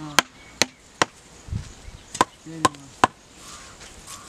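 A wooden stick pounding the top of a bamboo stake to drive it into the soil: two sets of three sharp wooden knocks, about half a second apart.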